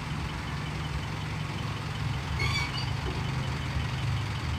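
Heavy vehicle's diesel engine running steadily at idle, a low pulsing rumble, with a brief high chirp about halfway through.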